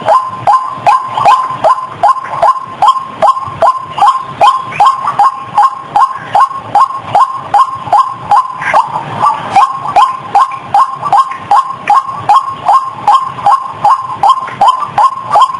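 White-breasted waterhen (ruak-ruak) calling: a rapid, even series of short notes about three a second, each dropping in pitch. It is the lure call used to draw wild waterhens to a trap.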